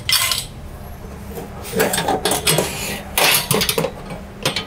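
Steel frame poles and wire shelving of a camp kitchen clinking and clattering against each other as they are handled and set down, in several short bursts: one at the start, then clusters around two and three seconds in.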